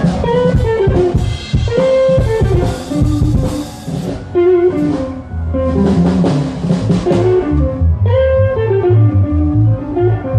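Amplified band playing during a sound check: a guitar runs a bluesy melodic line over a drum kit, with low bass notes stepping underneath in the last few seconds.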